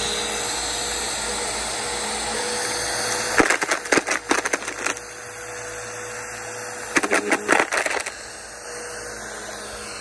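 Bissell PowerForce upright vacuum cleaner running steadily with a constant motor whine as it is pushed over grass and dirt. Twice, for a second or more each time, rapid clattering and crackling as dirt, grit and small stones are sucked up and rattle through the machine.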